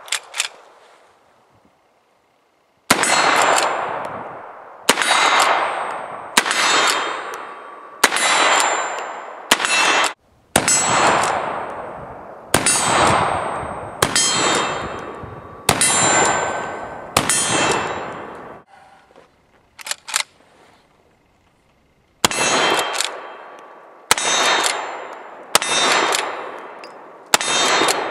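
Uberti 1873 lever-action carbine in .44-40 firing black powder cartridges, a shot roughly every second and a half. Each shot is followed by the ringing of the steel silhouette target as it is hit. About ten shots come in a first string, then after a short pause a second string of four or five.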